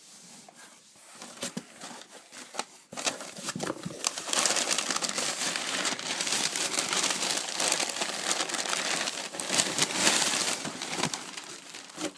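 Plastic shrink wrap being torn and crumpled off a box of trading cards: a few light crackles at first, then about four seconds in a loud, continuous crinkling that runs for several seconds before tailing off.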